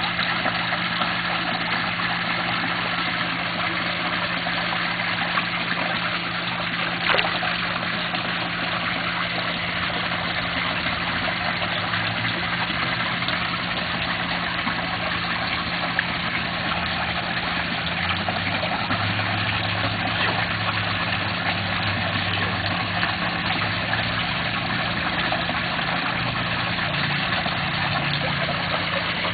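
Steady low machine hum under an even hiss, with one brief click about seven seconds in.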